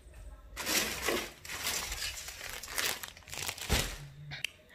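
Crinkling and rustling of the plastic packaging on packs of braiding hair as they are handled, in irregular bursts.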